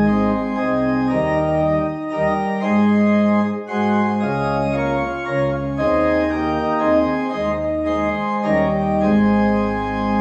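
Organ playing a closing voluntary after the dismissal: sustained chords that change every second or so over a low bass line, settling into a long held chord near the end.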